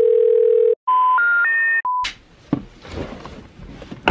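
Telephone tones: a steady dial-type tone, then three rising beeps in the pattern of the out-of-service intercept tones, and one short beep. A sharp click follows, then about two seconds of rustling noise ending in a thump.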